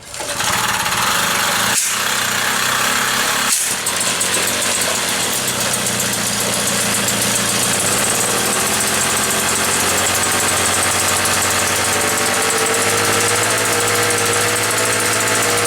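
Motobecane moped's single-cylinder two-stroke engine catching on its first start after restoration. It stumbles briefly twice in the first few seconds, then keeps running steadily.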